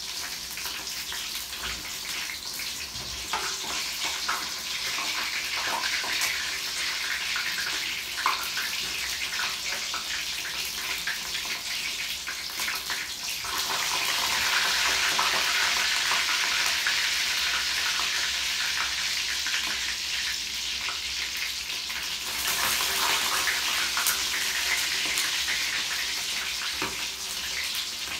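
Chicken pieces frying in hot oil in a pan: a steady sizzle with many small crackles and spatters. The sizzle grows louder about halfway through and again a little later.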